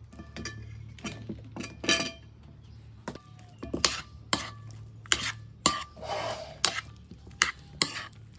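Metal spoon knocking and scraping against the bowl as it stirs chicken feet in a wet batter: a run of sharp clinks, the loudest about two seconds in.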